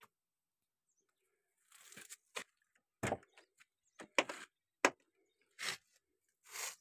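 Clicks and knocks of a pickup door being unlatched and swung open, a run of short sharp sounds with the two sharpest a little past four seconds in, followed by a couple of longer scraping rustles.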